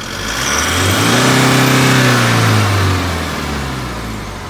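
Isuzu Elf truck engine revved once: the pitch rises over about a second, holds briefly, then falls back toward idle.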